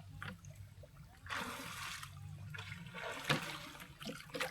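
River water trickling and splashing, setting in about a second in, with a couple of sharp knocks near the end.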